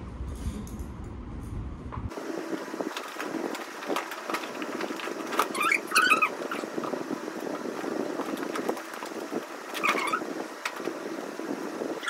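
Packing and handling noise: plastic bags rustling and small items clicking and knocking as things are wrapped and stowed, with two short wavering squeaks, one about six seconds in and one about ten seconds in.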